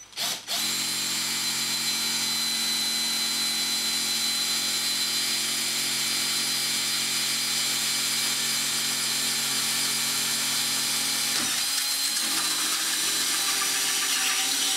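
Cordless drill driver running steadily as a combined drill-and-countersink bit cuts a pilot hole and countersink into acrylic sheet. A short blip of the trigger comes first, then one long continuous run, its lower hum changing about eleven seconds in.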